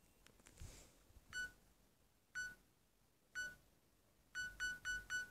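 A phone camera's self-timer counting down. It gives one short electronic beep each second, then the beeps speed up to about four a second in the last second before the shot.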